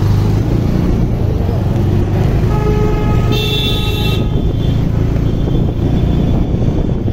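A motorcycle on the move gives a steady low drone of engine and road noise. A vehicle horn honks for about a second and a half near the middle.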